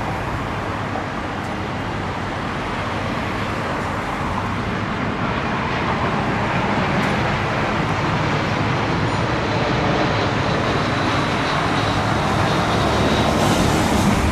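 Road traffic noise on rain-wet streets: a steady hiss of tyres and engines that slowly grows louder toward the end.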